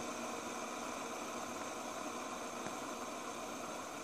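Green plastic fidget spinner spinning on a wooden table: a steady whir from its bearing over an even hiss.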